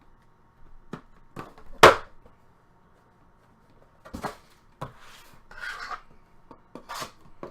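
Trading cards and packs being handled on a table: scattered taps, slides and rustles, with one sharp knock a little under two seconds in.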